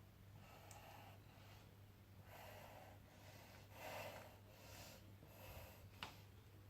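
Faint breathing of a person moving through a yoga flow: a series of short breaths about a second apart, with one sharp click about six seconds in, over a low steady hum.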